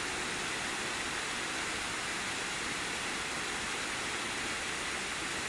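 Steady rush of flowing river water, an even hiss with no let-up.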